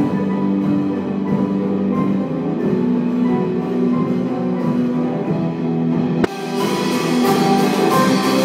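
Live band music from a stage band of cello, keyboard, electric guitars and drum kit, in a poor-quality recording. A sharp click about six seconds in, after which the sound turns brighter.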